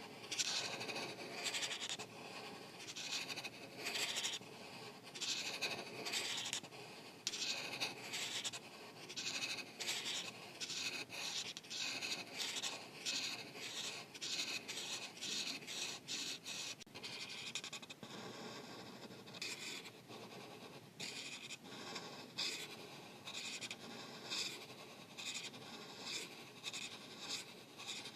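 Art marker felt tips scratching across paper in quick, repeated back-and-forth coloring strokes, a few per second. About two-thirds of the way through, the strokes run into a smoother, steadier passage.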